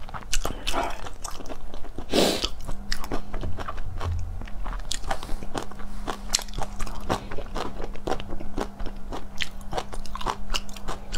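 Close-miked mouth sounds of eating: steady chewing with many small crunches and wet clicks, and a short breathy rush about two seconds in.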